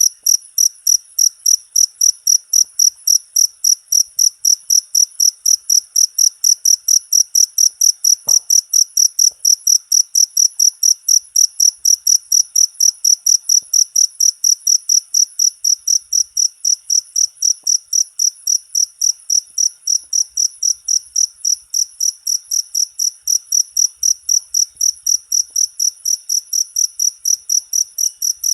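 A cricket chirping loudly in a steady, even rhythm of about three high-pitched chirps a second.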